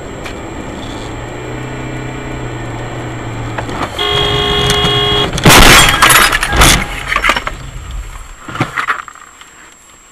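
Car engine and road noise from inside the car, growing louder, then a car horn sounding for about a second. Right after it comes a loud crash of a collision, with several smaller knocks and thuds after it.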